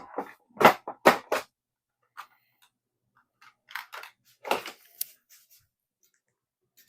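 Small hard parts clicking and clattering as they are handled and rummaged through, a quick run of sharp clicks at first, then scattered lighter ones.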